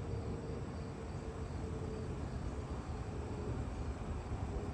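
Strong wind buffeting the microphone: a steady low rumble with a hiss over it, and a faint broken high tone underneath.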